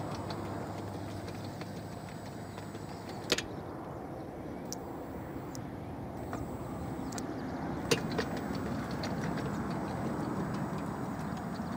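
UTOPUS anchor-traction robot working its way up a loose-soil slope: a steady mechanical noise with two sharp clicks, about four and a half seconds apart, and a few fainter ticks.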